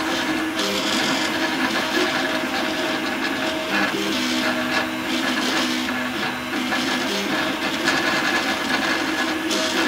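3D printer's stepper motors whining as the print head moves during a print. The pitch keeps jumping between a few steady tones, changing every fraction of a second with each new move.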